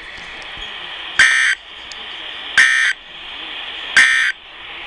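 Three short, identical bursts of EAS end-of-message data tones ("NNNN") from a NOAA Weather Radio broadcast, about a second and a half apart, over steady radio hiss. They signal the end of the Required Weekly Test message.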